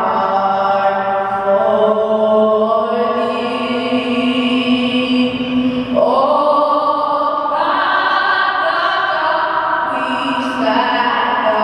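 A girl singing a national anthem solo into a microphone, amplified in an ice rink. She holds long, slow notes, stepping up to a higher held note about six seconds in.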